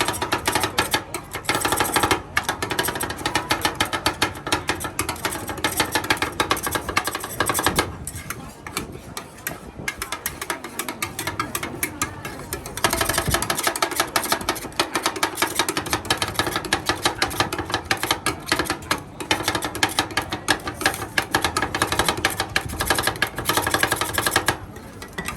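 Rapid, steady clatter of cooking utensils striking at a street food stall's cooking station, many strikes a second. It eases off about eight seconds in and picks up again around thirteen seconds.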